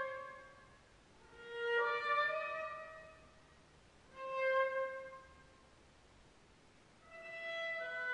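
Solo viola played with the bow: slow, separate held notes, each swelling and dying away, with short silences between them. A longer sustained passage begins about a second before the end.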